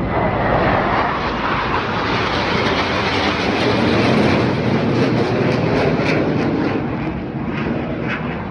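Jet engines of the Black Eagles' T-50B trainer jets roaring past in the air show, a loud rushing noise that eases off slightly toward the end.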